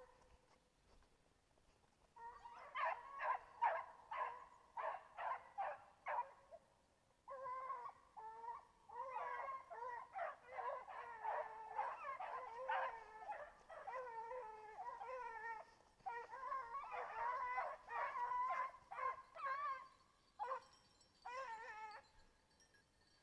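Young Griffon bleu de Gascogne hounds baying out of sight in the brush, in repeated bouts of quick, wavering cries: hounds giving voice, as they do on the scent of game.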